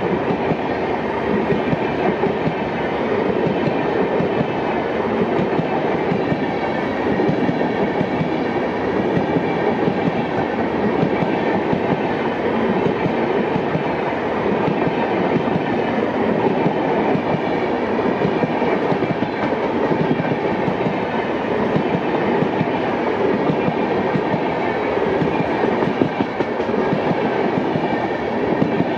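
LHB passenger coaches rolling past close by, their wheels running on the rails with a loud, steady rolling noise.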